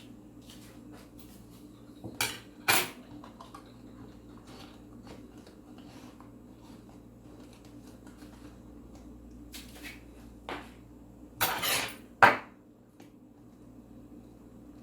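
Dishes and metal utensils clattering in a kitchen: a few scattered knocks and clinks, with the loudest cluster a little past the middle and another sharp knock just after it, over a low steady hum.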